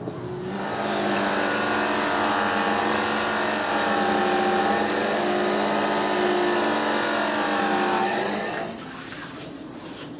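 Electric bench grinder running steadily with a knife blade held against its spinning wheel, a motor hum with a high grinding hiss. It dies down near the end.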